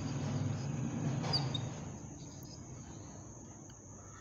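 Faint scratching and short squeaks of a marker pen writing on a whiteboard, over a low hum that fades about two seconds in.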